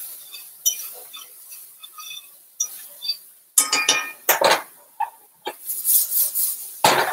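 Cauliflower rice being stirred in a cast-iron skillet with a fork, with light scraping and clinks. About halfway through, a ringing metal clatter as the utensils are set down on the stovetop, then the rice swishes as the skillet is tossed, and a heavy clunk near the end as the skillet lands back on the coil burner.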